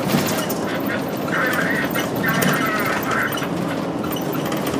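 Route bus driving along a town street, heard from inside at the front: steady engine and road noise, with three short high-pitched sounds between about one and three and a half seconds in.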